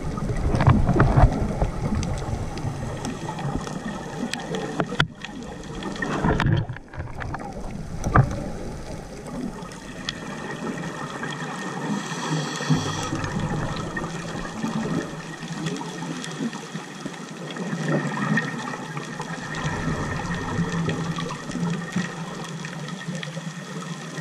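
Muffled underwater sound picked up through a diving camera's housing: water movement and gurgling, strongest in rumbling surges over the first eight seconds or so, then softer, over a faint steady hum.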